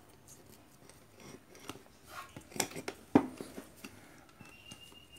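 Handling clicks and rattles of a plug and wires at a power strip, with one sharp click a little past three seconds in. A faint, steady, high tone comes in near the end.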